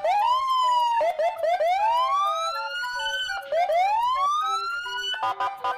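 Electronic police car siren: a series of rising wails, each sweeping up in pitch over a second or two and cutting off, then switching near the end to a fast, choppy two-tone yelp.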